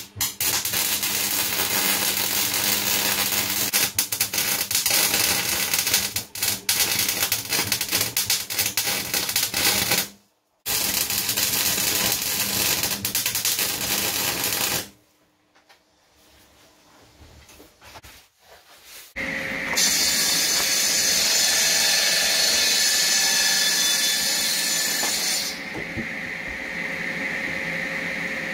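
Electric arc welding on forged steel: a dense, sputtering crackle in two long runs, broken by a short stop about ten seconds in. After a pause of a few seconds, a steady, hissing noise takes over, and it drops to a lower steady drone near the end.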